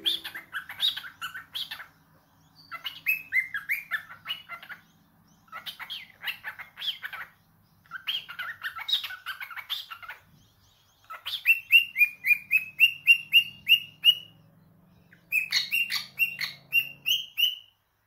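Cockatiel singing: phrases of warbling chatter and chirps, each about two seconds long with short pauses between them. In the second half it gives runs of quick repeated whistled notes, about four a second.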